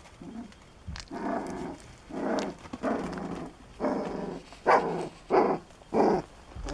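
A dog barking: about seven barks in a row, the last three the loudest and shortest.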